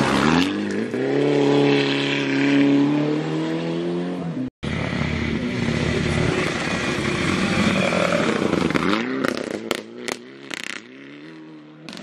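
Two Mitsubishi Lancer Evolution rally cars with turbocharged four-cylinder engines, one after the other: the first revs hard as it slides past on gravel and pulls away, its pitch rising then slowly falling. After a sudden cut the second approaches at speed, revs up about nine seconds in and gives a run of sharp cracks before its sound drops away.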